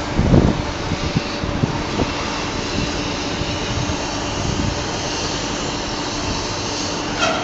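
Gantry crane machinery at a woodchip loading berth running with a steady mechanical hum while a large steel hopper hangs from its hoist cables. There are a few low knocks in the first half-second and a short hiss near the end.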